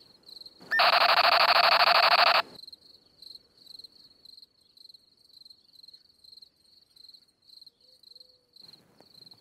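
Crickets chirping in a steady, regular rhythm, high-pitched. Near the start, a loud buzzer-like tone sounds for under two seconds and cuts off.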